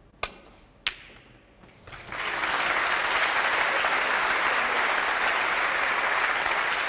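Two sharp clicks of snooker balls, the cue tip striking the cue ball and then the cue ball striking the object ball, followed about a second later by audience applause for the pot that lasts through the rest.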